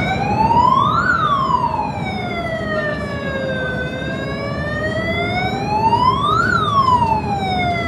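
Wailing siren, its pitch rising and falling slowly, peaking about a second in and again about six and a half seconds in, over a low rumbling noise. It starts abruptly.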